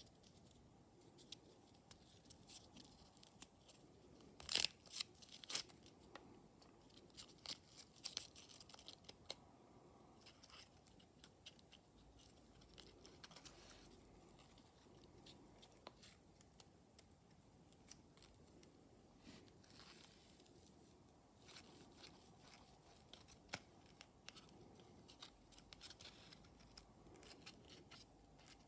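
Faint crisp crackling and rustling of folded paper as a tightly collapsed origami flasher is pulled open in the hands, its many pleats unfurling. Scattered short ticks and crinkles, the loudest a cluster about five seconds in.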